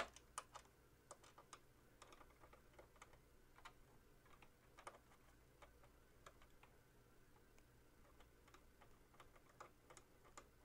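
Faint, irregular light clicks and ticks of screws being turned by hand into the back of a monitor to attach the mounting arm, over a low steady room hum.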